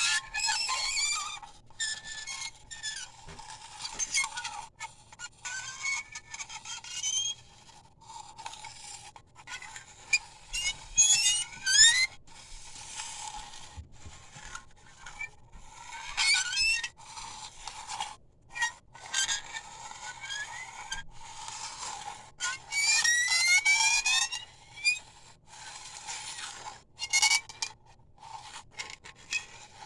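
Elmo toy drum giving ear-piercing screeching squeals, in repeated scraping bursts whose pitch rises within each burst.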